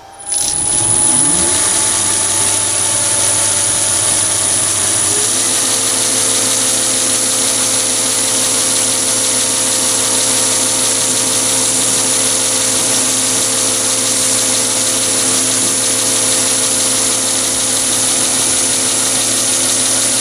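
Chinese mini lathe starting up about a third of a second in, rising in pitch as it spins up, then running steadily at about 615 rpm with a high whine while the end of a brass tube is faced off with a carbide insert tool.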